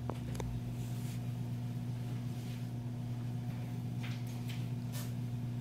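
Steady low electrical hum of room equipment, with a few faint clicks and knocks near the start and again about four to five seconds in.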